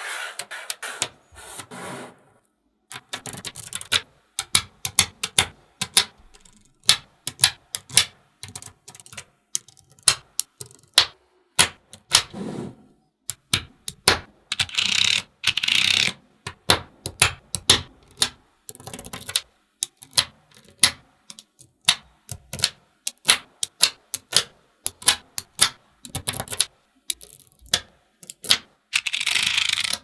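Small magnetic balls clicking and snapping together in irregular clusters of sharp clicks as strips of them are laid down and stacked into layers. Twice, about halfway and near the end, a longer scraping rattle as a plastic card is dragged along the rows of balls.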